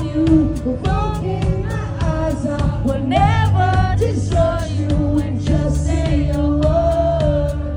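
Live rock band playing, with a male lead vocalist singing over guitar, bass and drums.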